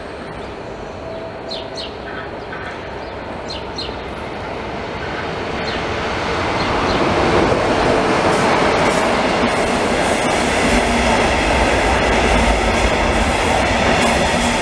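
Electric passenger trains on steel rails. Wheels give short high squeaks in the first few seconds, then the rumble of wheels on track grows louder as a train runs in and holds steady and loud as it rolls past.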